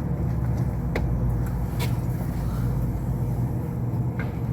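Steady low mechanical hum of running machinery, with a few small clicks of parts being handled.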